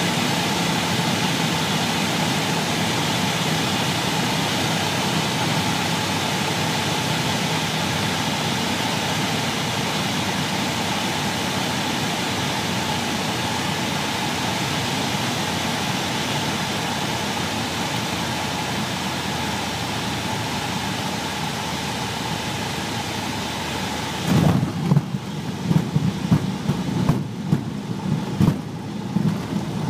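Cockpit noise of a single-engine propeller light aircraft on final approach: a steady engine and propeller drone with wind rush, and a low hum that fades out in the first several seconds. About 24 seconds in the rush drops away as the wheels touch down, giving uneven rumbling and bumps of the landing roll on the runway.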